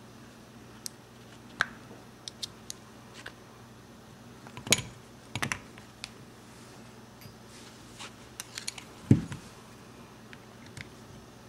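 Light metal clicks and taps from handling a 1911 pistol's frame and parts as the grip panels come off, with a few louder knocks and a dull thump about nine seconds in. A faint low hum runs underneath.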